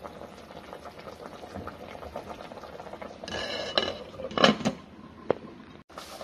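Chicken broth boiling in a stainless steel stockpot, with a steady bubbling. About three seconds in, a glass pot lid scrapes and then clanks against the pot's rim a few times, loudest just after the four-second mark.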